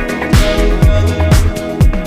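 Background music: an upbeat funk/disco-style dance track with a steady kick drum about twice a second, a bass line and held chords.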